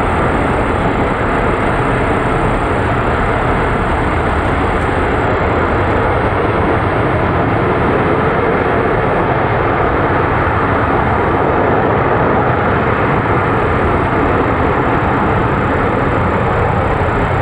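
LE-9 liquid-hydrogen/liquid-oxygen rocket engine firing on the test stand in a static firing test: a loud, steady, unbroken engine noise with no change in pitch or level.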